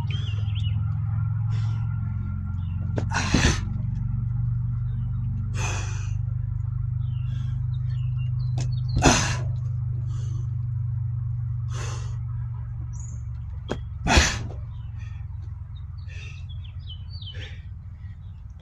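A man's sharp, forceful exhalations, about five of them two to three seconds apart, as he does weighted plyometric jumps, over a steady low hum.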